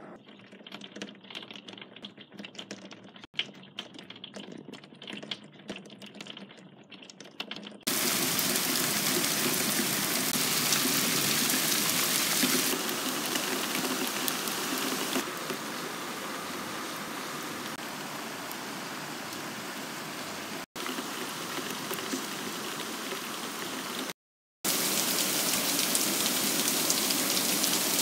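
Rain: at first a light patter of scattered drops, then, about eight seconds in, a sudden change to the loud, steady hiss of heavy rain, broken by a few abrupt cuts.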